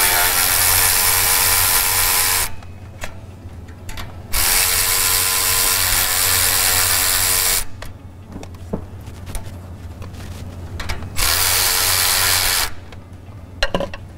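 Cordless electric ratchet spinning an 11 mm deep-well socket, loosening the turbo's downpipe clamp bolt. It runs in three bursts: about two and a half seconds at the start, about three seconds from four seconds in, and a short run near eleven seconds. Faint clicks come in the pauses between bursts.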